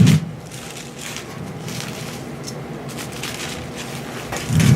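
Paper rustling as Bible pages are leafed through to find a passage, with a short louder sound at the start and again near the end.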